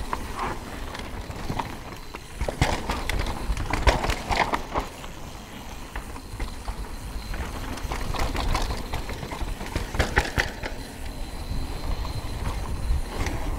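Mountain bike running fast down a hardpacked dirt trail: tyres rumbling over the dirt while the bike rattles and clatters over bumps, in bursts of knocks a few seconds in and again about two-thirds of the way through.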